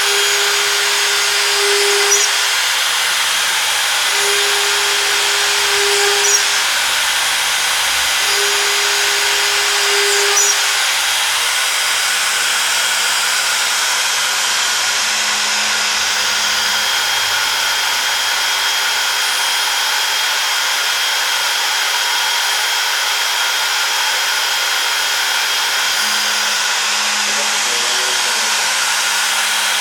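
CNC router running steadily with its spindle's high whine. A lower tone comes in for about two seconds at a time, three times in the first ten seconds, and later a deeper tone holds for several seconds twice, as the machine's axes move.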